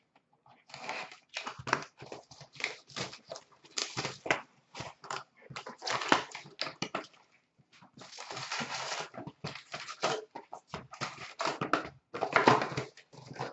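Plastic shrink-wrap and cardboard of a sealed hockey-card hobby box being torn and opened by hand: irregular crinkling, tearing and rustling.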